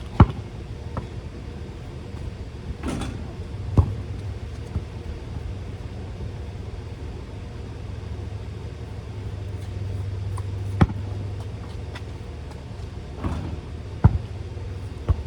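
A basketball thuds a few times, in separate sharp hits a few seconds apart, over a steady low rumble that swells a bit past the middle.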